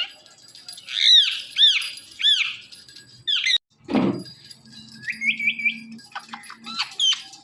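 Indian ringneck parakeet calling: three loud arching squawks about a second in, a sharp falling swoop around the middle, then a quick run of three short rising chirps and more squawks near the end.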